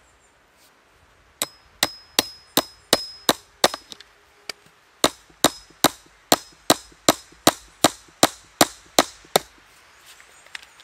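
Claw hammer driving a fence staple into the top of a wooden fence post. About seven sharp strikes with a metallic ring come first, then a short pause, then about a dozen more, at roughly two and a half strikes a second.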